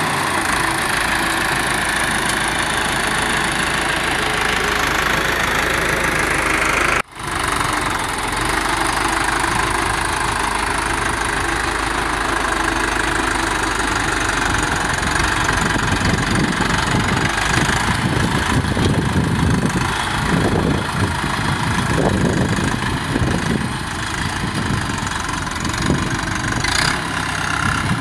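Massey Ferguson 285 tractor engine running steadily as the tractor is driven. The sound cuts out briefly about seven seconds in, and from about sixteen seconds on its low end becomes more uneven.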